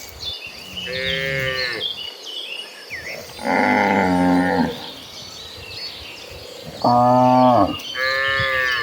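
Cattle mooing: about four long calls in turn, some high and some low, each lasting about a second.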